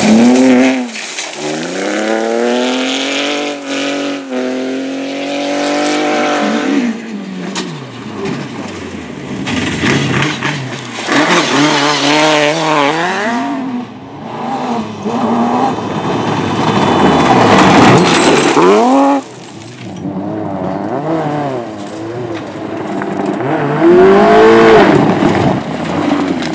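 Rally car engines driven hard, revving up and dropping back again and again through gear changes and lifts as the cars pass. The sound breaks off abruptly several times as one pass gives way to the next.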